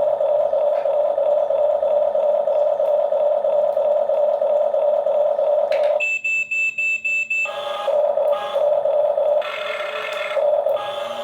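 Remote-control toy sounds: a steady, loud whine, then a quick run of about five high beeps about six seconds in, then uneven whirring with the whine returning.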